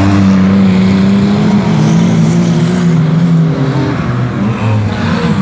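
Stockcar engines racing on a dirt track: one loud engine note held fairly steady with slight dips as a car runs past, then several engines revving up and down near the end.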